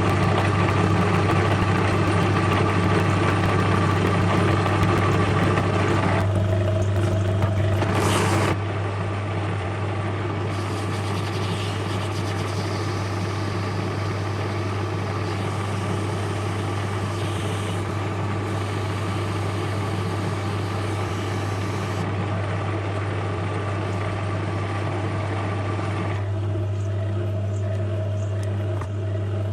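Metal lathe running with a steady low hum and a few higher steady tones, turning a stainless-steel part. The sound drops slightly in level about eight seconds in.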